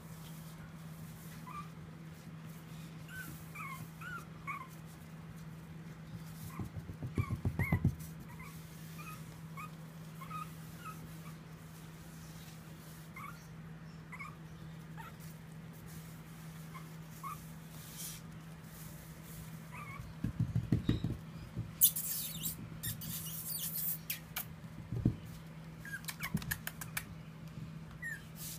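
Pomeranian puppy making short, high whimpering squeaks on and off as it plays, over a steady low hum. Twice a short burst of rapid low pulses stands out as the loudest sound, and a brief hiss comes about three-quarters of the way through.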